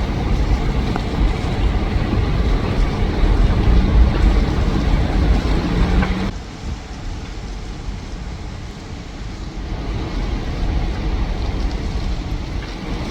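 Wind gusting across the microphone, a heavy low rumble that drops off suddenly about six seconds in and then builds again.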